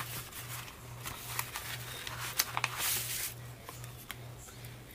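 Paper and envelopes rustling as they are handled, with a few light clicks and a louder stretch of rustling about two to three seconds in. Under it runs a faint low hum that pulses about twice a second.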